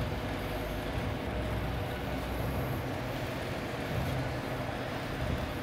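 Steady low background rumble and hiss with no distinct knocks or clicks.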